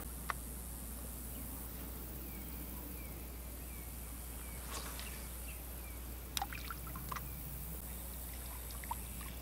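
Quiet outdoor ambience by a pond with a few soft clicks as a spinning rod and reel is cast. A row of faint short chirps repeats about twice a second through the middle.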